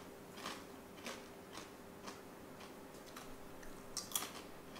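Crisp fried potato papad being bitten and chewed: a run of faint crunches, the loudest about four seconds in.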